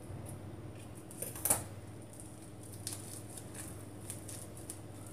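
A single sharp snip of scissors about a second and a half in, cutting off leftover thread, among faint rustling and small handling clicks over a low steady hum.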